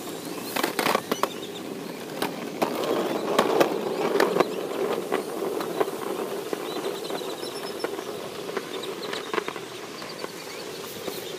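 Hard small wheels of a children's ride-on toy and bicycles rolling on a paved path: a steady rolling rumble with scattered clicks and knocks, loudest around three to four seconds in.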